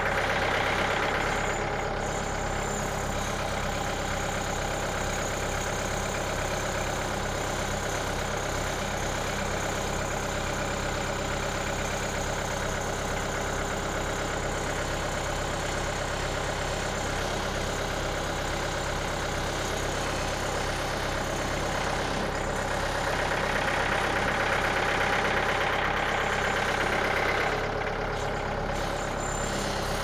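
Mahindra compact tractor's diesel engine running steadily while it carries a large log on its front-loader forks. It grows louder for a moment right at the start and again for a few seconds near the end.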